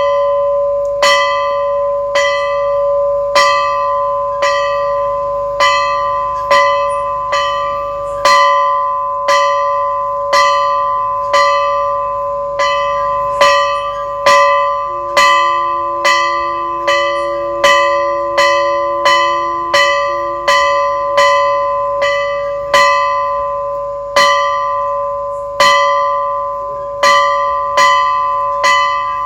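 Temple bell struck over and over at a steady pace of about one strike a second, its ringing never dying away between strokes, during the puja.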